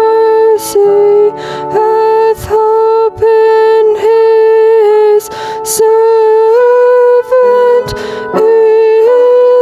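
A solo female voice sings a slow line of long held notes that step gently between pitches, with short breaths between phrases.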